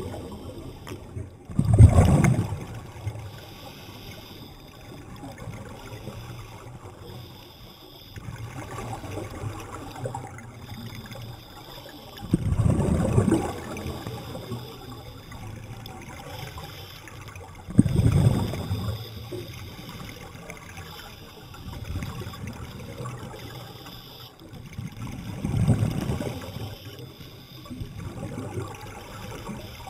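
Scuba regulator exhaust bubbles heard underwater as divers breathe out: four bubbling bursts several seconds apart, each lasting a second or two, the first, about two seconds in, the loudest, over a faint steady wash of water.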